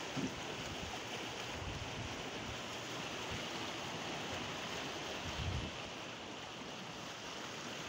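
Steady wash of small sea waves breaking over rocks and shallow water, with a few brief low wind buffets on the microphone.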